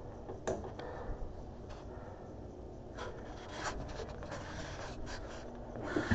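Light scattered clicks, knocks and rubbing as a handheld camera is carried along a kitchen counter. Right at the end a kitchen tap is turned on and water starts running into a steel sink.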